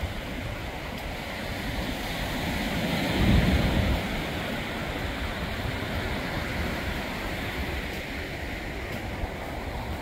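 Small surf waves breaking and washing up a sandy beach, a steady rush that swells louder for about a second, around three seconds in.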